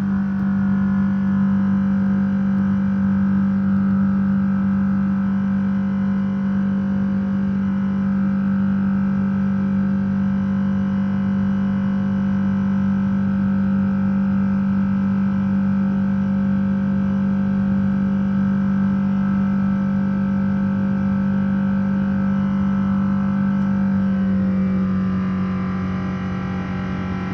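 Jet airliner's turbofan engines heard inside the cabin during the climb after takeoff: a loud, steady drone with a strong low hum and higher whining tones. About 24 seconds in it quietens a little and the tones shift slightly.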